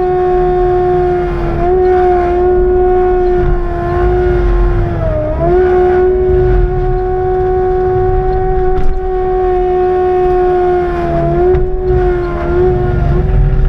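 CAT skid steer running an FAE forestry mulcher: a steady high whine over the engine's low rumble. The pitch sags briefly twice as the mulcher head bites into thick brush and vines, then recovers.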